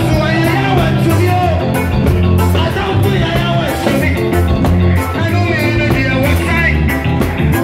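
Live church band playing gospel music with singing: drum kit keeping a steady beat under a bass line and voices.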